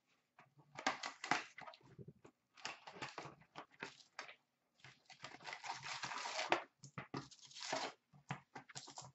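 Paper and plastic packaging of a hockey card box being torn open and crinkled as the packs are pulled out. Irregular crackling and tearing in short clusters, with a longer stretch of crinkling about five to six and a half seconds in.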